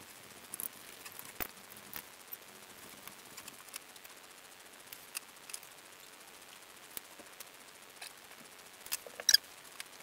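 Dry-erase marker squeaking and scratching on a whiteboard in short strokes, with small clicks between them; a louder squeak about nine seconds in.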